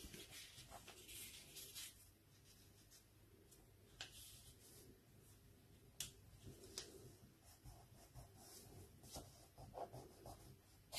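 Faint rustling and rubbing of a sheet of paper being folded and creased by hand, with a few soft ticks.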